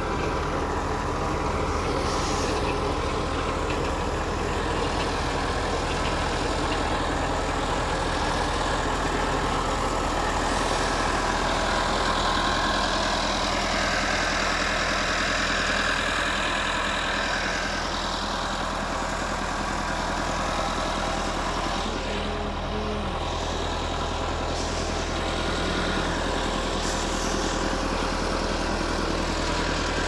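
Farm tractor engine running steadily while pulling a potato digger through the rows.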